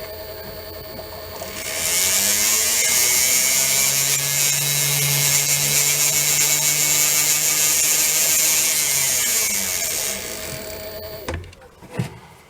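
Small lathe motor running up to speed and back down, with a fine stone hissing against the spinning steel pivot blank through the middle of the run as the pivot is ground down to a gentle press fit. The motor stops near the end, followed by a few light clicks.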